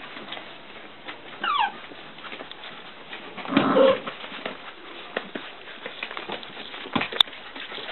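Young puppies whimpering and yelping while they play-fight. There is a short, high, falling whimper about a second and a half in, and a louder, longer cry around the middle. Light scuffling clicks from paws and toys run throughout, with one sharp click near the end.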